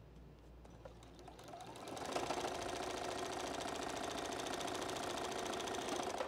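Juki domestic sewing machine stitching a seam: it speeds up over the first two seconds with a rising motor whine, then runs at a steady fast stitching rate and stops suddenly near the end.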